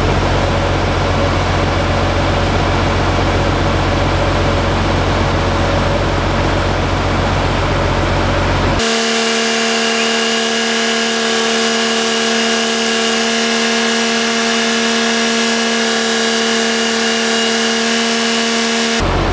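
Truck engine idling for about the first nine seconds. Then the sound changes abruptly to a steady electric whine with several held tones as the 24 V DC linear actuator drives the slide-out room outward.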